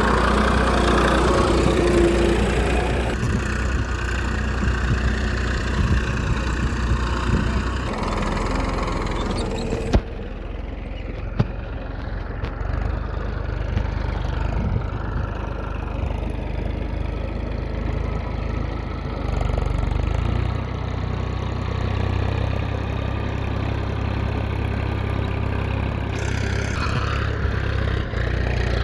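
A small engine runs steadily, like an idle, with a low, even hum. Its tone changes abruptly a few times. Two sharp clicks come about ten and eleven and a half seconds in.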